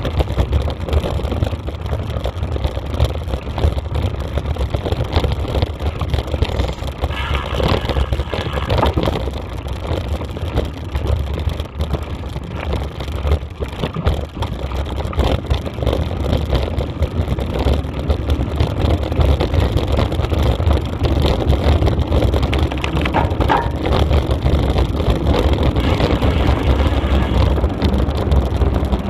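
Steady low rumble and wind buffeting the microphone during a fast ride along a gravel forest track.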